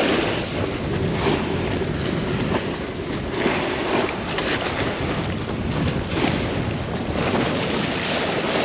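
Wind buffeting the microphone over choppy water splashing against a pier, a steady rushing noise with a few faint knocks from the plastic bait bucket being handled.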